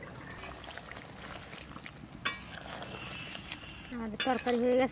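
Chital fish dumplings (muitha) simmering in spiced gravy in an uncovered pot, a soft steady bubbling, with one clink of a utensil about two seconds in. A voice sounds loudly near the end.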